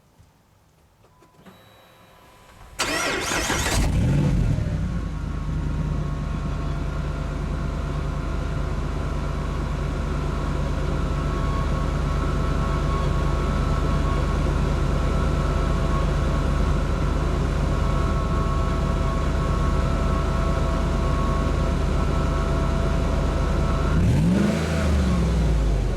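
Hemi V8 cold-started through its Flowmaster Super 44 muffler: it catches about three seconds in, flares up, then settles into a steady idle. Near the end there is one short rev that rises and falls back to idle.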